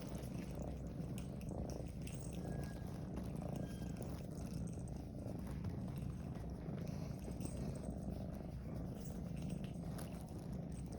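Cat purring, a steady low rumble.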